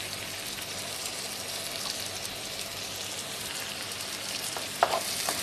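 Diced tomatoes and vegetables sizzling in oil in a frying pan, a steady fine crackle. Near the end a wooden spatula knocks and scrapes against the pan as the mixture is stirred.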